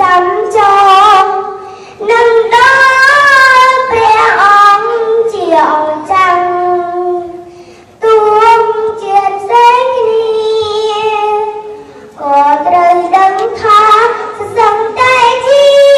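A child chanting Khmer verse in a melodic, sung style into a microphone, in long phrases of held, wavering notes with brief breaks between them.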